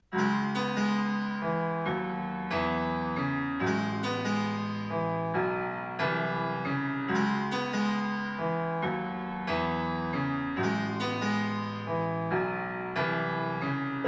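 Piano music played back through a Creative Halo portable Bluetooth speaker at 80% volume: struck piano notes and chords in a steady, repeating pattern.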